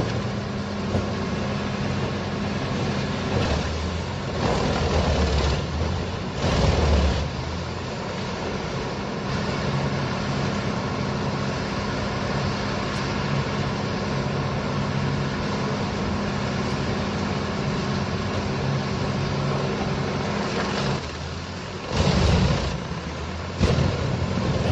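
Heavy machine's engine running steadily under work, with a few short louder bursts of noise.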